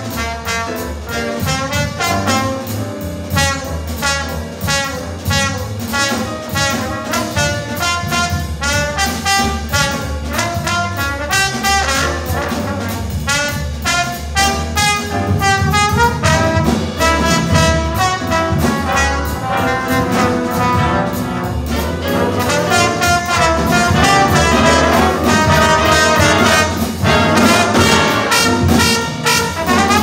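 Big band jazz ensemble playing live, with brass to the fore over drum kit and bass and two trombones featured at the front. The band grows louder about halfway through.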